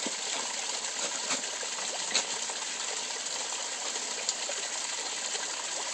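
Steady rush of water running into a garden koi pond, with a few brief splashes about a second, two seconds and four seconds in from the koi at the surface.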